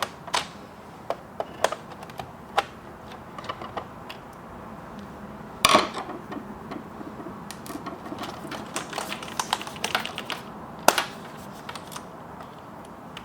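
Scattered clicks and small knocks of a plastic computer keyboard being handled while the screws on its back are taken out with a Phillips screwdriver. There are louder knocks about six seconds in and again near eleven seconds.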